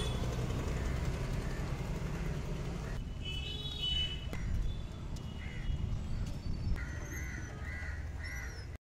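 Street ambience: a steady low rumble of motorbikes and traffic, with crows cawing, a quick run of about four caws near the end. The sound cuts off suddenly just before the end.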